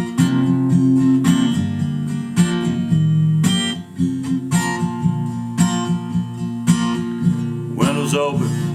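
Acoustic guitar strummed in a steady rhythm, playing the instrumental intro of a song.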